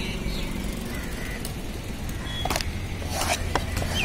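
Busy fishing-harbour ambience: a steady low rumble like engine traffic, with a few short sharp knocks and clicks in the second half.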